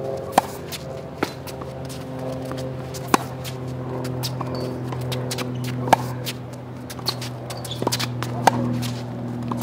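Tennis balls struck with a racquet: sharp pops about every three seconds, with fainter knocks of bounces or returns between. Underneath, steady background music of held notes.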